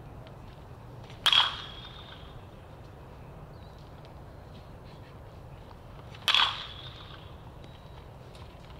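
A baseball bat striking a pitched ball twice, about five seconds apart, each a sharp crack with a short ring after it.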